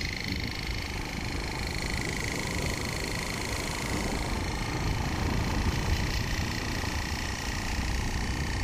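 Wind rushing over the phone's microphone while moving along a road, with a steady high whine throughout.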